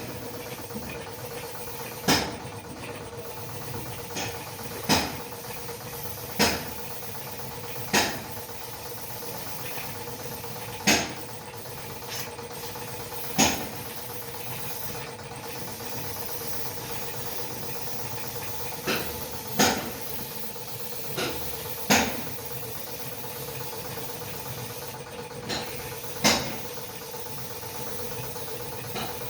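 Sharp single knocks, about a dozen, coming irregularly every two to three seconds, over a steady machine hum.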